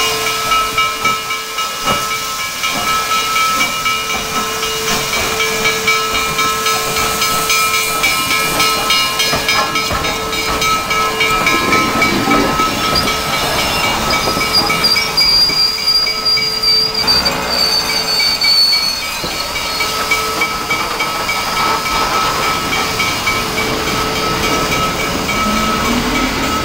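Steam locomotive working slowly, with a steady hiss of steam and fast rhythmic pulsing. A high squeal glides downward about halfway through.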